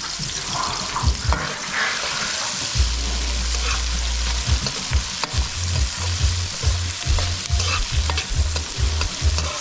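Chopped onion, garlic, pepper and scallion sizzling in hot oil in a stainless-steel wok, stirred with a metal utensil. Its repeated strokes scrape and knock against the pan over a steady sizzle, coming more regularly from about halfway through.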